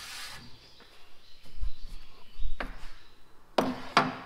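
A heavy, rusted Farmall Super M tractor radiator being tipped over and shifted on a wooden workbench: a couple of low thuds about halfway through, then sharp metal knocks near the end.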